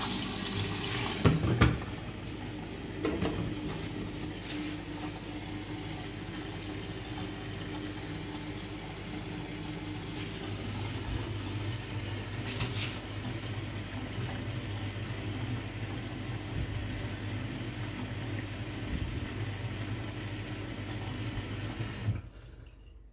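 Front-loading washing machine filling with water: a steady rush of water through the detergent drawer into the drum, with a low steady hum underneath. A couple of knocks come about a second and a half in, and the rush cuts off suddenly near the end.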